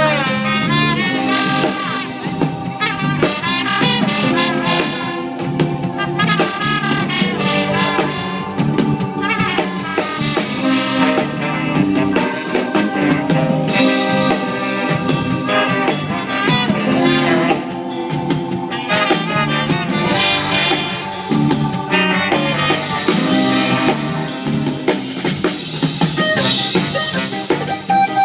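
A live band playing, with brass horns carrying the tune over a drum kit.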